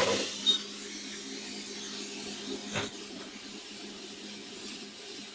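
Hot air rework station blowing steadily with its nozzle removed, set to a high 110-litre air flow: a constant rush of air with a low hum. A sharp knock right at the start and a light click about three seconds in.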